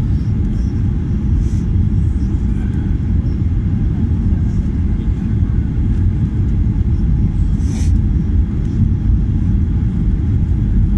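Steady low rumble of engine and airflow noise inside the cabin of a Ryanair Boeing 737-800 descending on approach with flaps extended. A brief click comes about eight seconds in.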